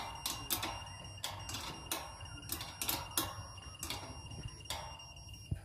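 Satellite signal meter giving a steady high beep tone while the dish is being aimed, with about a dozen irregular sharp clicks and knocks from hands working the dish mount.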